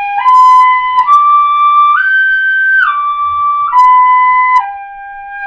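Pífano, a wooden transverse fife in C, playing a G-major arpeggio: G, B, D and high G held about a second each, then back down through D and B to G. Clear, steady notes with a slight tongued break between some of them.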